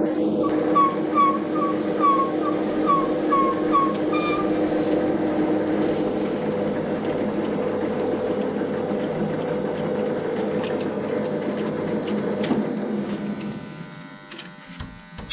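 Woodturning lathe running with a steady hum, a quick run of short high squeaks in the first few seconds, the sound dying away near the end.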